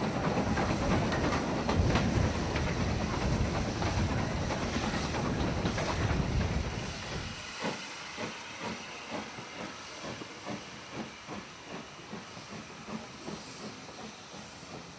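Loud, even rumble and wind noise of a moving train heard from aboard, for about seven seconds. It then gives way abruptly to the LNER D49 4-4-0 steam locomotive Morayshire pulling its coaches away, with a hiss of steam and regular beats about two a second.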